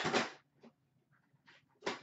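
Short rustles and knocks of things being handled, a louder one right at the start and a sharp one just before the end, with faint ticks between.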